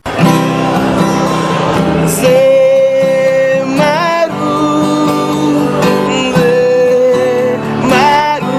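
Music with a singing voice holding long notes over guitar accompaniment, starting abruptly.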